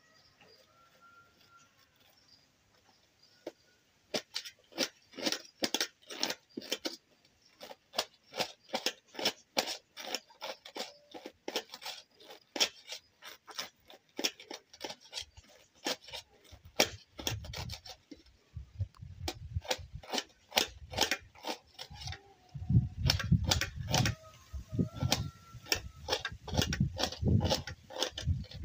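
A knife cutting through a cabbage over a tray: a quick, even run of crisp cuts, about three a second, starting about four seconds in. Heavier, deeper thumps join the cutting in the second half.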